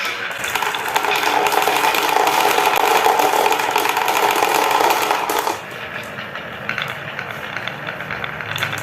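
Marbles rolling down wooden marble-run tracks: a loud, steady rolling rumble for about five seconds that cuts off suddenly, followed by lighter clicking and clattering of marbles on wood.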